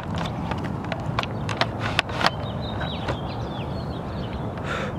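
Scattered sharp clicks and knocks from a handheld camera being picked up and moved, with small birds chirping faintly in the background.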